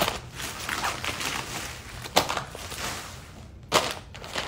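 Plastic shopping bag rustling and crinkling as the mystery bags are handled, with two sharp knocks, one about halfway through and one near the end.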